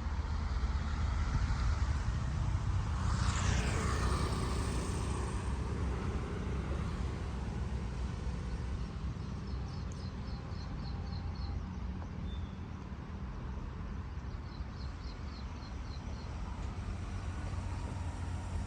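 Outdoor roadside ambience with a steady low rumble. About three seconds in, a vehicle passes, its sound falling quickly in pitch. Later a bird chirps twice in short quick runs of high notes.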